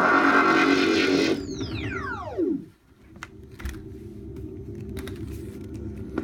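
Electronic sound effect from a replica Ghostbusters 2 proton pack's light/sound kit. A dense, many-toned buzzing stops about a second and a half in, and a whine sweeps steeply down in pitch over about a second, like a power-down. A quieter low hum with a few sharp clicks follows.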